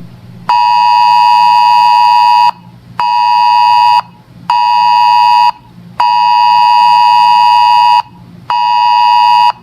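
Weather radio alert beeping for an incoming weather alert: a loud, buzzy tone near 1 kHz that sounds five times, in a long, short, short, long, short pattern with half-second gaps.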